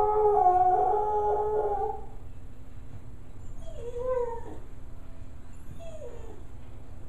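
A dog howling: one long, steady howl that dies away about two seconds in, followed by two short whines, one rising and falling around four seconds in and one falling near six seconds. The owner takes the howling for sadness.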